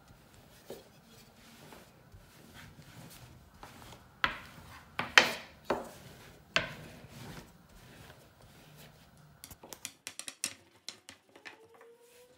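A thin wooden rolling pin rolling out dough on a floured wooden board: soft rubbing, with several sharp wooden knocks near the middle and a run of quick light clicks near the end.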